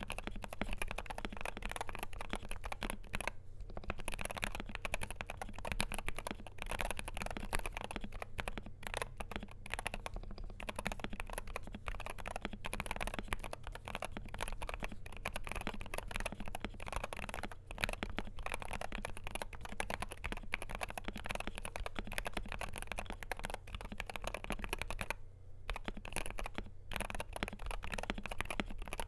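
Continuous fast typing on a Wooting 60HE keyboard with Lekker L60 magnetic Hall-effect switches, a stainless steel plate, PBT doubleshot keycaps, lubed stabilizers, foam and a tape mod: a dense run of key clacks with brief pauses about three and a half seconds in and near the end.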